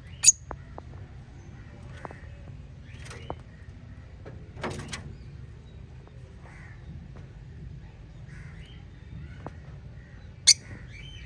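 Small pet parrots chirping: two short, sharp, shrill calls, one just after the start and one near the end, a louder call about halfway through, and scattered softer chirps between, over a steady low hum.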